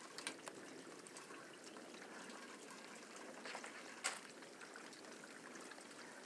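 Faint, steady rushing noise of a thunderstorm heard outdoors, with a few faint sharp clicks, the sharpest about four seconds in.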